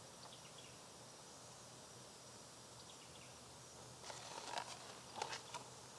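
Faint outdoor ambience with a thin, steady high insect drone; a few short rustles come in over the last two seconds.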